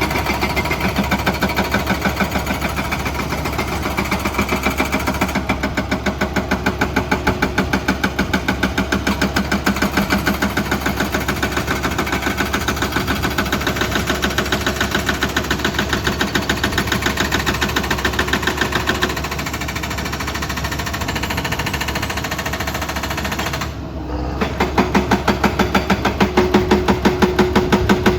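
Excavator at work: its machinery makes a fast, even pulsing rhythm, with a brief dip about three quarters of the way through.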